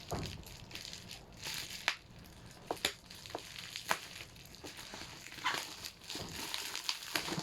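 Plastic packaging rustling and crinkling as it is handled, with scattered sharp clicks and taps.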